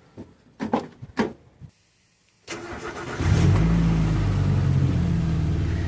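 A 1996 Suzuki X-90's four-cylinder engine, after a few faint clicks, is started about two and a half seconds in. It catches and settles into a steady idle, grumbling from a hole in the exhaust.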